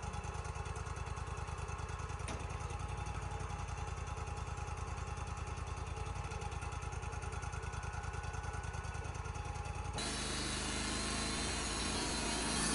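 Wood-Mizer band sawmill's engine running at a steady, evenly pulsing idle; about ten seconds in it throttles up and the band blade starts running, turning the sound abruptly louder and hissier.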